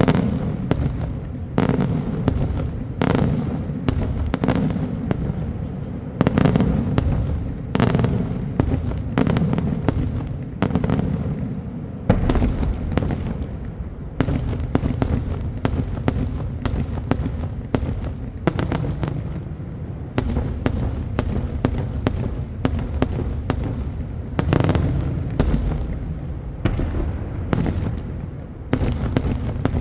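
Daytime fireworks display: a continuous run of loud, sharp bangs, one or two a second, over a steady low rumble.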